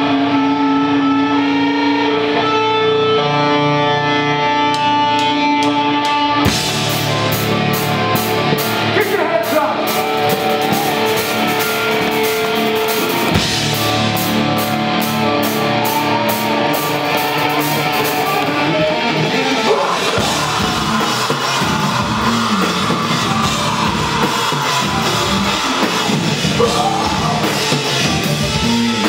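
Live rock band with electric guitars, electric bass and a drum kit. Held notes ring for about six seconds, then drums and cymbals come in with the full band and play on loudly.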